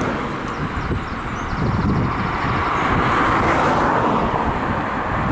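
Freight train hauled by a GBRf Class 66 diesel locomotive passing, its wagons running along the rails with a steady rumble that swells in the middle, under heavy wind buffeting on the microphone.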